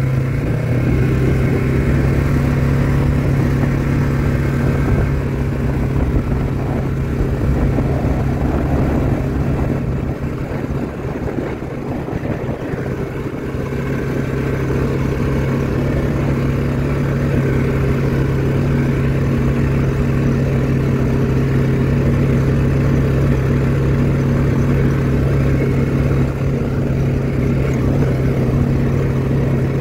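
Four-wheeler ATV engine running at a steady speed while riding, easing off briefly about a third of the way through before settling back.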